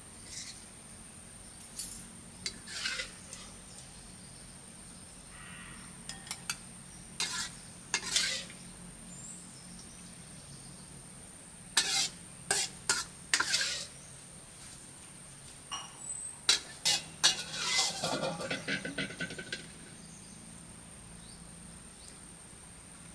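Metal utensils clinking and scraping against dishes in scattered strokes, busiest in two stretches during the second half, over a faint steady high-pitched whine.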